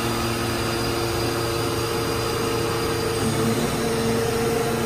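Mazak FF-510 horizontal machining center's spindle running at about 8,000 RPM: a steady machine hum with several held tones that change about three seconds in.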